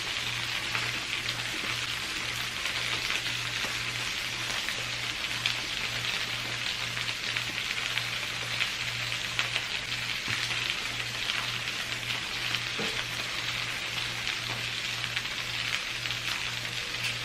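Food sizzling and frying in a skillet: a steady hiss with small crackles and pops, over a low pulsing hum.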